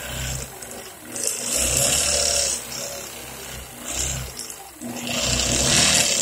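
Longarm quilting machine stitching in bursts of about a second and a half, one about a second in and one near the end, with quieter pauses between.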